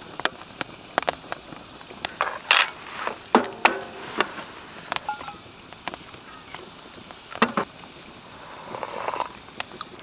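Wood fire crackling with scattered sharp pops and snaps from a wood stove and an open fire pit. There are a few short metallic clinks of a kettle and a steel cup as hot water is poured.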